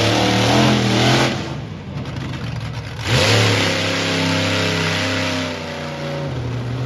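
Monster truck engine revving hard as the truck drives and turns on a dirt track. The revs ease off about a second and a half in, climb again sharply around three seconds in and hold, then drop back a little near the end.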